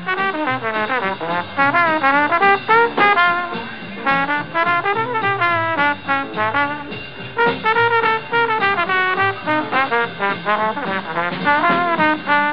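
Lively instrumental music led by brass, with fast runs of notes moving up and down.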